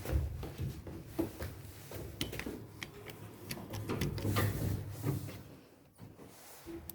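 Inside a high-speed elevator car in travel: a low rumble with scattered clicks and rattles, fading away about six seconds in.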